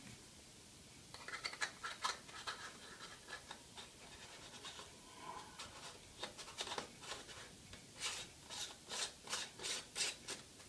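Polaroid +2 close-up filter being screwed by hand onto the front thread of a camera lens: short scratchy clicks and scrapes of the filter ring in the thread. There is a cluster about a second in, and a quicker even run of three or four a second near the end.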